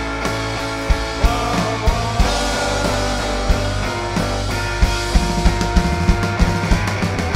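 Live rock band playing an instrumental passage: guitars holding ringing notes over a drum kit. The drumming becomes busier about five seconds in.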